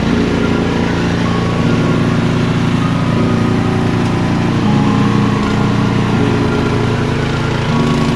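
An engine running steadily, its pitch shifting up and down in small steps a few times.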